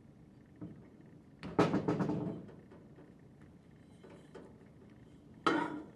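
Metal rotor and shaft assembly being slid into an internal gear pump's casing: a quick cluster of metallic knocks and scrapes about a second and a half in, a couple of light ticks, then a single knock near the end as the rotor goes into the casing.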